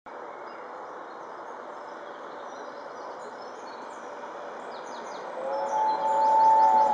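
Steady outdoor background hiss with faint bird chirps, then about five seconds in a steam locomotive's three-chime whistle, the LNER A4 Pacific 60007 Sir Nigel Gresley's, sounds a loud held blast of several tones together.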